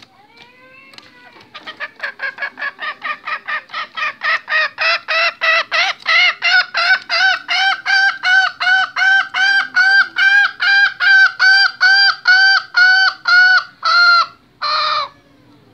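Agitated call of a restless male junglefowl: a long series of repeated, clucking call notes, about three a second, growing louder, then two longer, drawn-out calls near the end.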